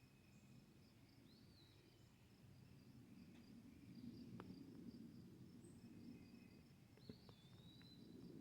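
Faint rural ambience: crickets chirping in a steady, even pulse, with two short whistled bird calls, one about a second in and one near the end, over a low background rumble.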